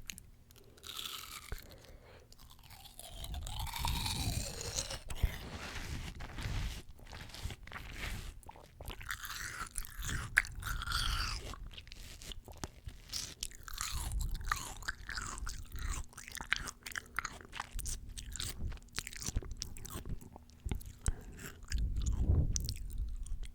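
Close-miked ASMR eating: bites into fresh fruit and chewing, a dense run of short clicks and crackles.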